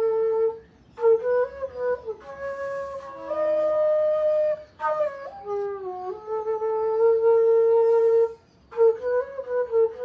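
Solo flute playing a slow melody of held notes and short runs, pausing briefly for breath about a second in and again near the end.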